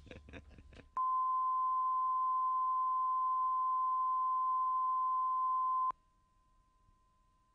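Broadcast videotape line-up tone: one steady, pure test tone that starts about a second in and cuts off suddenly about five seconds later. A few faint clicks come before it.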